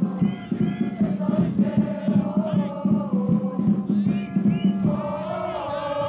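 Supporters' cheering section in the stands singing a chant together over a quick, steady beat of about four strokes a second. The beat drops away near the end while the singing carries on.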